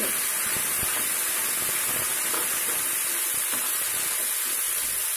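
Boiled bottle gourd pieces frying with onions and tempering in hot oil in a pan, stirred with a spatula: a steady sizzling hiss with light scrapes and taps of the spatula.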